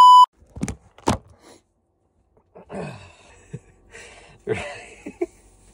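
A loud, steady test-card beep that cuts off just after the start, part of a TV colour-bars glitch transition, then two sharp clicks. After that, a man's short laughs and groans as he pulls on cycling bib shorts.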